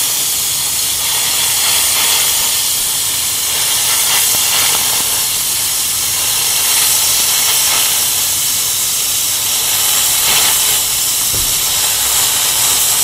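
Tenya NBC-288 multifunction welder's plasma cutter cutting through 2 mm steel plate: a loud, steady hiss of the plasma arc and compressed-air jet, unbroken throughout.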